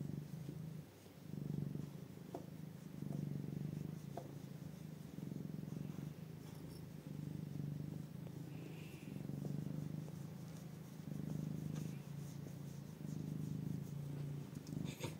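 Domestic cat purring steadily while being stroked, the purr swelling and easing about every one and a half to two seconds with its breathing in and out.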